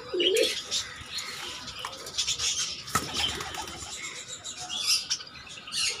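Pigeons cooing with birds chirping around them, and one sharp click about three seconds in.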